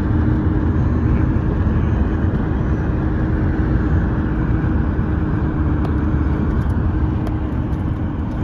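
Road noise from inside a moving car's cabin: a steady rumble of tyres and engine with a constant low hum.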